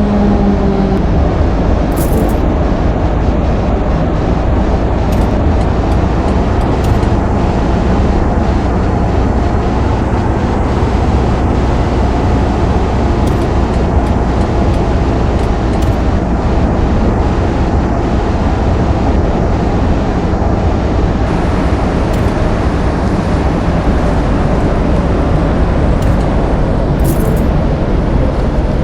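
Steady loud rumble and hiss, like a vehicle in motion, with a few low falling tones dying away about a second in.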